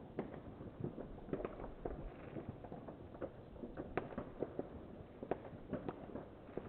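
Firecrackers going off in the distance: irregular short, sharp pops, several a second.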